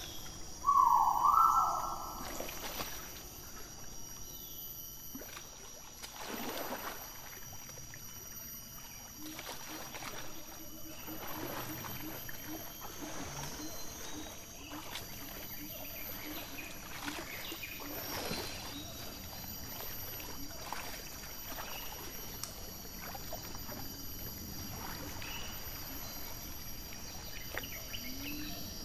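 A Sumatran rhino wallowing in a muddy pool, sloshing and splashing thick mud and water in repeated, irregular splashes. About a second in there is one loud call of two rising notes, and a steady high-pitched whine runs beneath the splashing.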